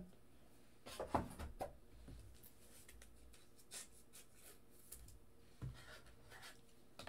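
Faint handling sounds of trading cards and card packaging: a few soft rustles and light taps about a second in, another near six seconds, and a sharper click just before the end.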